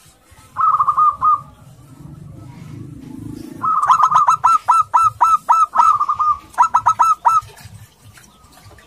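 Local zebra dove (perkutut) calling: a short quick run of staccato cooing notes, then after a pause a longer rapid string of the same notes with a brief break near the end.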